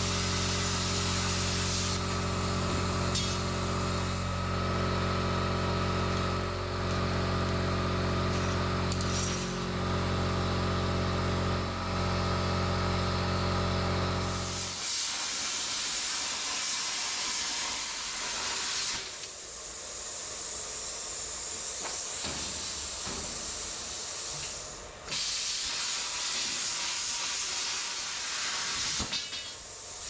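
Cutting torch hissing steadily as it cuts a long strip from steel plate. A steady low machine hum runs under it and stops suddenly about halfway through, leaving the hiss, which breaks off briefly a few times near the end.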